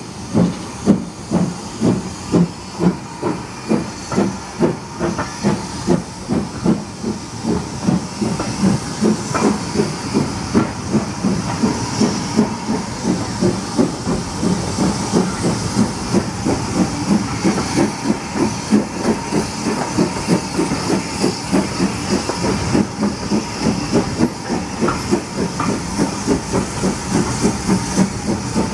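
Steam locomotive hauling a train away from a standstill, its exhaust chuffs coming faster and faster as it gathers speed, over a steady hiss of steam.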